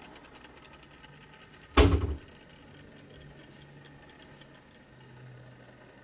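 A single heavy thump about two seconds in, over a faint steady low hum.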